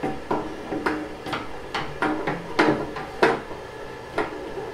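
Resin vat of an Anycubic Photon resin printer being set back into its seat on the printer: about eight irregular knocks and clunks, the loudest two in the middle.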